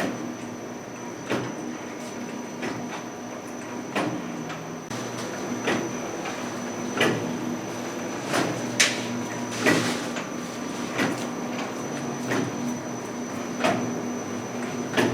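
Automatic momo (dumpling) forming machine running: a steady mechanical hum with a short clack about every one to one and a half seconds.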